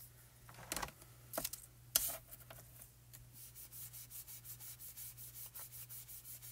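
Foam applicator loaded with pan pastel rubbing over cardstock: a few separate scrapes in the first two seconds, then quick back-and-forth strokes at about three a second.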